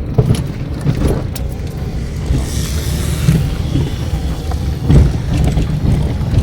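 Fiat Palio driving over a rough road with steady road rumble and a few knocks from the front suspension, the loudest about five seconds in. The knocking comes from a front shock absorber leaking oil: its bump stop has disintegrated, so the strut bangs against its metal top mount on bumps.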